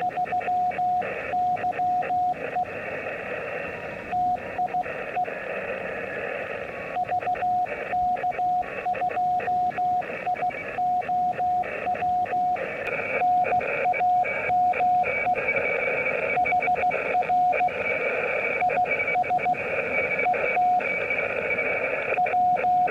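Morse code (CW) signal heard through a shortwave amateur radio receiver: a single steady tone keyed on and off in dots and dashes, over the receiver's band hiss.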